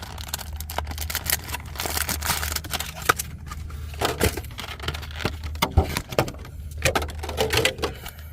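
Hands unwrapping and opening a sealed trading-card trial deck: plastic shrink wrap crinkling and cardboard crackling, with irregular clicks and a few sharper snaps. A steady low hum runs underneath.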